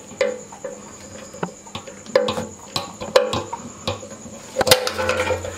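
Irregular sharp clicks and knocks as the motorcycle's fuel tank and its fittings are handled, the loudest near the end. Crickets chirp steadily in the background.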